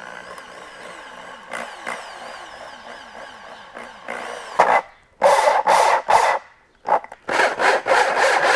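Electric drill fitted with a hole saw cutting a speaker hole in MDF: the motor runs with a wavering whine for the first half, then the cut goes in short, louder stop-start bursts of grinding through the wood.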